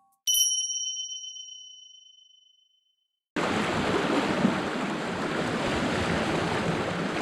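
A single bright bell-like chime rings out and fades away, then after a moment of dead silence a steady wash of surf and wind on the microphone cuts in suddenly.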